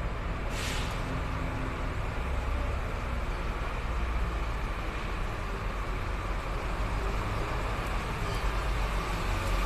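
Steady low rumble and hiss of mechanical background noise, with one brief sharp scrape about half a second in.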